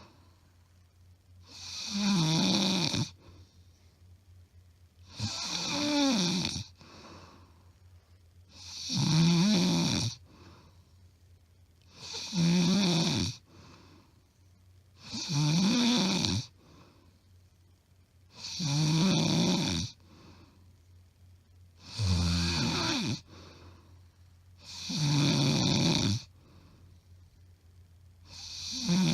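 A woman snoring loudly, recorded up close: a long buzzing snore on each in-breath, about every three seconds, nine in all, with quiet between. The breathing stays regular, and the uploader says it is not sleep apnea.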